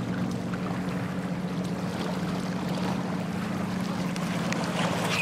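Motorboat engine running with a steady low hum over lake water.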